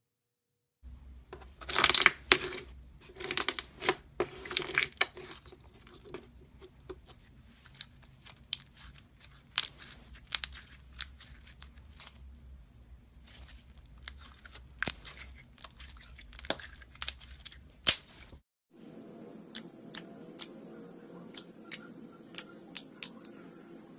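Slime being squeezed, pressed and pulled by hand, giving dense crackling pops and clicks, loudest in the first few seconds. After a cut about eighteen seconds in, softer slime clicks come over a steady background hum.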